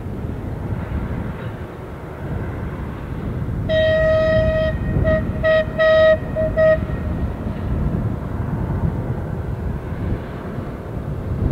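Diesel locomotive horn sounding a long single-note blast about four seconds in, then a string of short toots, over the steady rumble of diesel locomotive engines drawing closer.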